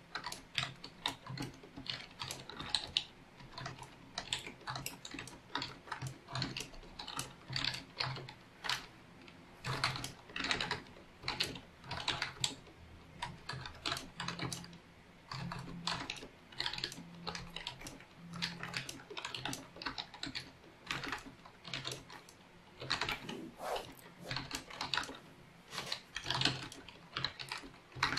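Fast touch-typing on a Logitech MK850 wireless membrane keyboard: a rapid, unbroken run of keystroke clicks, loud.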